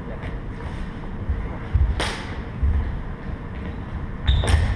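A sword-fencing bout on a wooden gym floor: low thuds of footwork throughout, with a sharp hit about two seconds in and another near the end.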